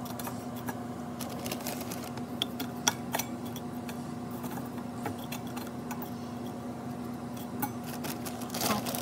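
Scattered light clicks and clinks of food pieces and a piping bag being handled in a metal tin, over a steady low hum.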